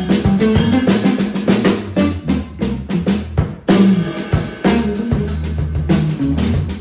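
Small band playing a funk groove, with the drum kit to the fore: busy snare and bass drum hits with rimshots, over electric bass guitar and electric guitar.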